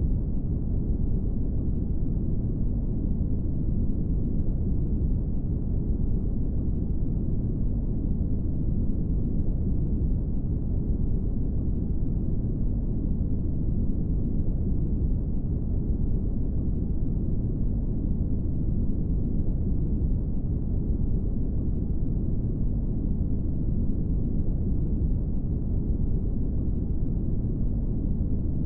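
Brown noise: a steady, deep, even rushing hiss with most of its weight in the low end and almost nothing in the highs, unchanging throughout.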